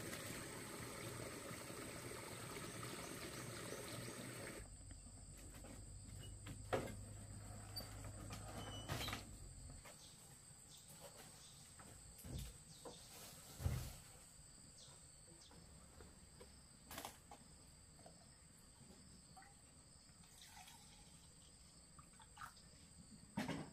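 A shallow stream trickling between rocks for the first few seconds, then it cuts off sharply. A handful of light knocks and thumps follow at intervals, over a faint steady high-pitched insect tone.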